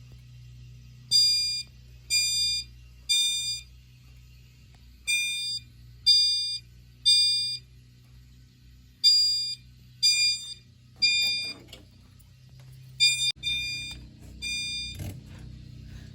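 Fire alarm system sounding the temporal-three evacuation pattern set off by a pulled manual pull station: three loud high tones about a second apart, then a longer pause, repeating every four seconds. The pattern breaks up and stops near the end, with some handling clicks and a low steady hum underneath.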